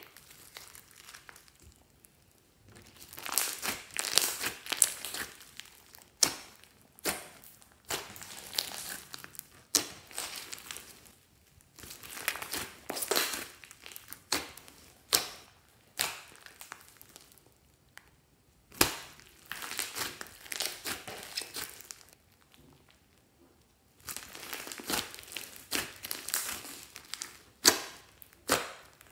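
Hands kneading, pressing and stretching a large mass of glossy slime mixed with small beads: squishing and crackling in repeated bursts of a second or two, with short pauses between and a few sharp pops.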